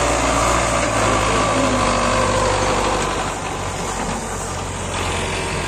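Small motor of a miniature model tractor running steadily, easing off a little about halfway through.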